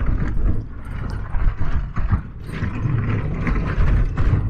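Ford Ranger pickup with a 2.2 L turbo-diesel jolting along a rough gravel track: a steady low rumble of tyres and engine, with constant irregular rattling and knocking from the truck and its fittings over the bumps.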